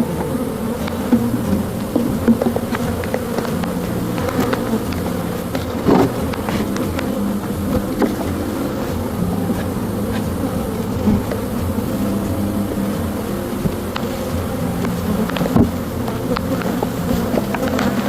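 A mass of honey bees buzzing in a steady hum around an opened hive, with a few short knocks from the hive being worked.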